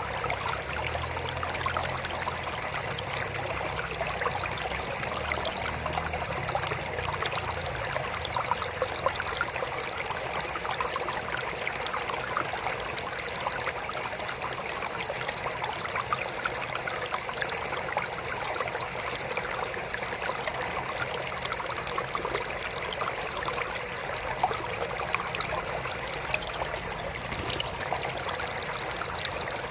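Water trickling steadily in a small aquarium, a continuous stream of small splashes and drips. A faint low hum sits under it through roughly the first half.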